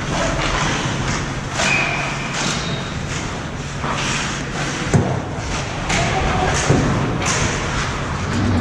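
Ice hockey practice on an indoor rink: skate blades scraping the ice, sticks and pucks clacking, with a sharp knock about five seconds in and another near seven seconds, over a steady low arena hum.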